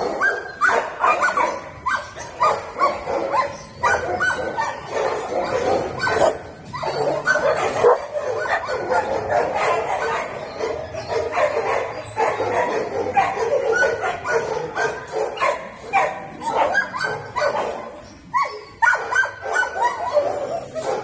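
Many dogs barking and yipping at once: a dense, overlapping chorus of short calls that goes on without a break.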